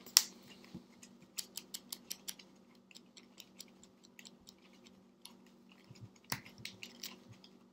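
A deck of Magic: The Gathering cards being shuffled by hand after a library search: a run of light clicks and snaps, with sharper clacks just after the start and again about six seconds in.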